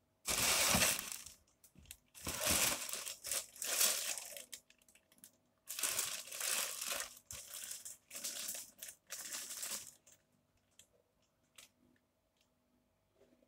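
Plastic-wrapped paper parcel crinkling and rustling as it is picked up and turned over by hand, in three stretches over about the first ten seconds, then only a few faint ticks.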